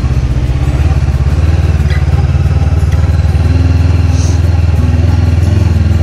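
Honda CB500X's parallel-twin engine running at a steady low note as the motorcycle is ridden along, with no revving.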